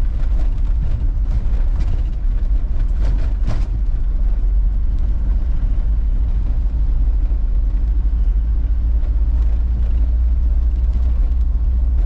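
Troller 4x4 driving along: a steady low rumble of engine and road noise, with a few short knocks and rattles in the first few seconds.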